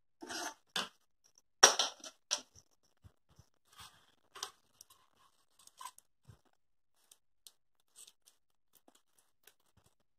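Scattered small clicks, scrapes and rustles of a plastic propeller being pushed and twisted onto the end of a wooden stick, a tight fit that will not go on. A few louder rustles come in the first half, then fainter ticks.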